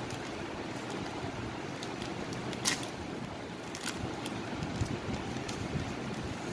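Plastic wrapper of a Malkist biscuit packet crinkling as fingers pick at and tear it open, with scattered sharp crackles, the loudest about two and a half seconds in, over a steady background hiss.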